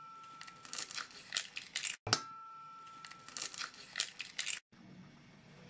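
Eggshells crackling and snapping as eggs are broken open by hand, in two runs of small crackles.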